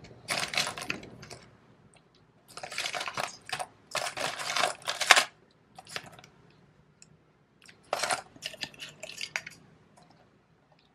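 Aluminium Nespresso coffee capsules clinking and rattling against each other and a metal tin as a hand rummages through them, in several separate bursts of clatter.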